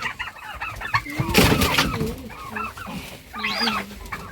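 Poultry clucking and squawking, many short overlapping calls, with a brief burst of noise about a second and a half in.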